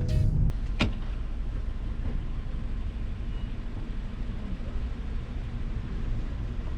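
Steady low rumble of a running vehicle, with one sharp click about a second in.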